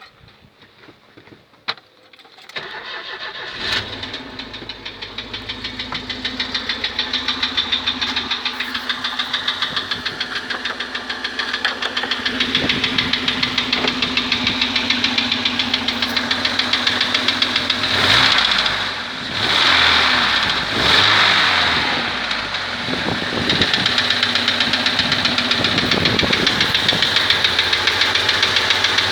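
ZMZ-409 four-cylinder petrol engine starting about two and a half seconds in, then idling with a steady rhythmic knock, briefly revved twice past the middle. The owner is sure the knock is not from the hydraulic lifters, and its cause is unknown.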